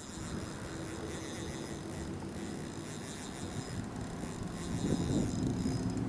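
Steady outdoor background noise with a faint low hum, swelling slightly over the last second or so.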